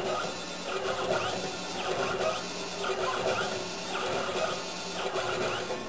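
CNC machine's stepper motor driving a ball screw through a timing belt and pulleys: a motor whine with repeated rising and falling pitch glides over a steady hum.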